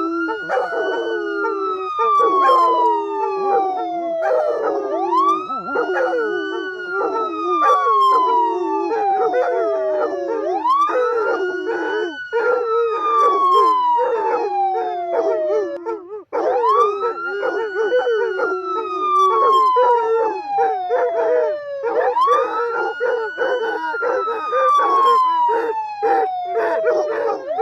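A wailing emergency siren repeats its cycle about every five and a half seconds, each time rising quickly and then falling slowly. A pack of dogs howls along with it in long, wavering notes, mixed with short yelps and barks. The sound cuts out briefly about halfway through and then carries on.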